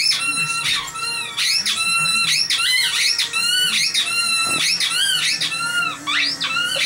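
A dog chewing a squeaky toy, working the squeaker over and over in a fast, steady run of high-pitched squeaks, about two to three a second.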